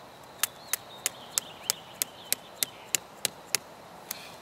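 Small hammer tapping a plastic hold-down stake into the soil to pin a drip irrigation mainline: eleven sharp, evenly spaced knocks, about three a second, then one lighter tap near the end.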